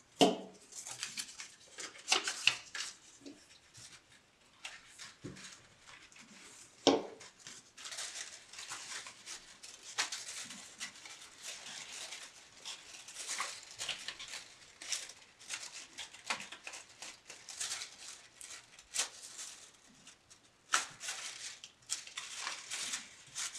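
Construction paper rustling and crinkling as hands pinch and press folded paper strips onto a paper-chain loop, with scattered light clicks. There are two louder knocks, one at the very start and one about seven seconds in.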